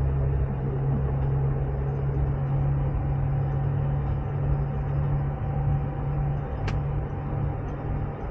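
Steady low drone of a coach bus's engine and road noise, heard from inside the passenger cabin while it drives, with a single short click near the end.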